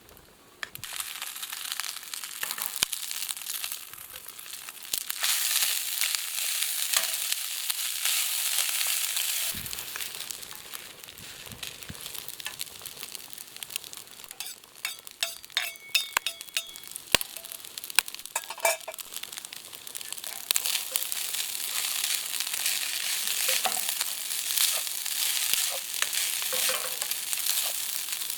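Food frying and sizzling in a pan, with a steady hiss, and a cluster of clicks and scrapes from a utensil stirring it around the middle.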